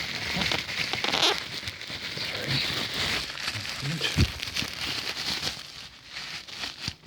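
Packaging crinkling and rustling as it is pulled off a high pressure gas regulator: a dense run of crackles and crinkles, thinning out near the end.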